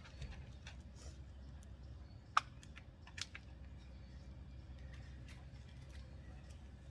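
Light clicks and taps of trampoline mat rods and plastic clamps being handled and fitted, with one sharp click about two and a half seconds in and another a little later, over a low rumble.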